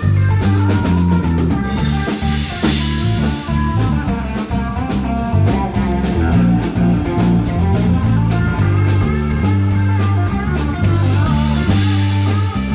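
Live rock band playing an instrumental passage: electric guitar over bass guitar and drum kit, in a bluesy style, with a cymbal crash about two and a half seconds in.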